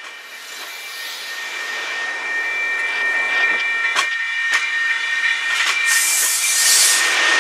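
MBTA commuter rail passenger coaches rolling past close by, getting steadily louder, with a steady high-pitched metallic squeal running through the rumble. Two sharp wheel clacks come about four seconds in, and a strong hiss builds near the end.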